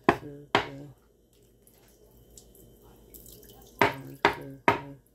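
Mug of frothed milk knocked down on a wooden counter to settle the foam: two knocks near the start and three in quick succession near the end, about half a second apart, each with a short ring.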